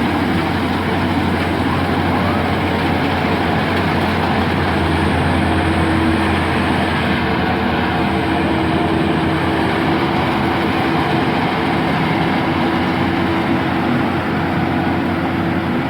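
Rice combine harvester running steadily: a loud, continuous engine and machinery drone with a constant low hum.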